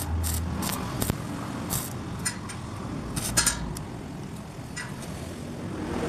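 Stick (arc) welding on a stainless-steel knife: scattered sharp crackles and metallic clicks over a steady background hiss, with a brief low hum right at the start.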